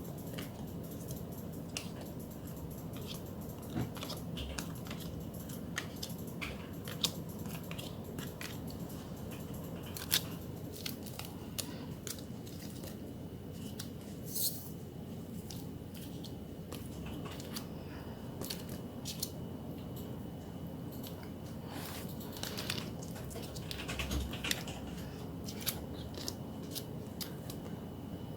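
Photocards and their plastic sleeves being handled and sorted: scattered light clicks, taps and crinkles over a steady low hum.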